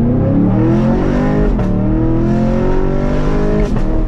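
Chevrolet Camaro SS 6.2-liter V8 through a Corsa Extreme cat-back exhaust, accelerating hard through the gears. The engine climbs in pitch, drops at an upshift about a second and a half in with a short pop, climbs again and shifts again with another pop near the end.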